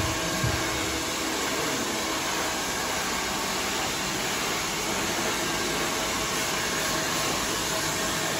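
Handheld hair dryer running steadily while blow-drying hair, an even hiss of blown air.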